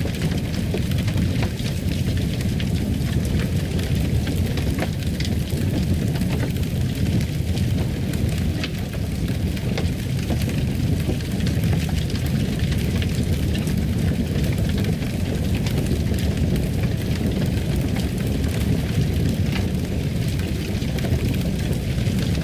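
Wood fire crackling in a fireplace: a steady low rumble of flame with scattered small crackles and pops.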